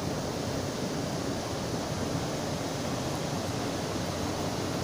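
Small river waterfall rushing steadily, an even noise of falling water.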